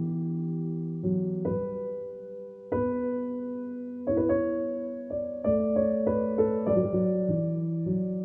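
Background piano music: slow chords that change about once a second.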